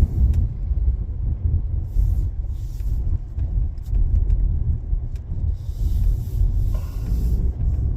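A car being driven, heard from inside the cabin: a steady low road and engine rumble, with a few brief hissing swells on top.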